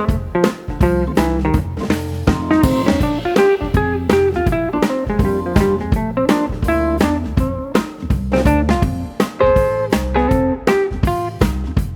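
Instrumental background music: a plucked guitar melody over a drum kit keeping a steady beat.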